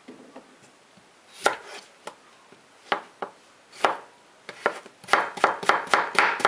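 Large kitchen knife slicing a cucumber on a heavy polyethylene cutting board. A few separate cuts come first, then from about five seconds in a fast steady run of chops, about four a second.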